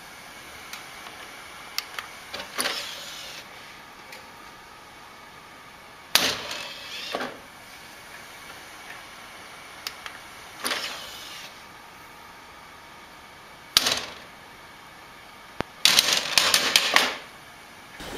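Clicks and short whirring, clattering bursts from a desktop computer's optical drive as a cat paws at it, about five times, with a fast run of clicks near the end.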